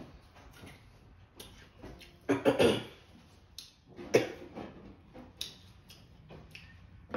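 Close-up eating sounds: fingers sucked clean of spicy sauce, lip smacks, and crispy fried chicken being pulled apart by hand. A loud, half-second burst comes a little over two seconds in, and a sharper one about four seconds in.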